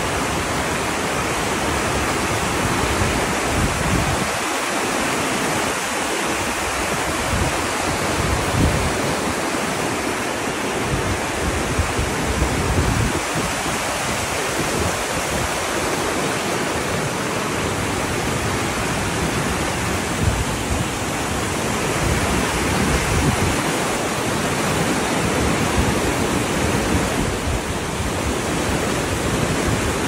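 A waterfall cascade: white water rushing steadily over rocks and logs in a forest creek.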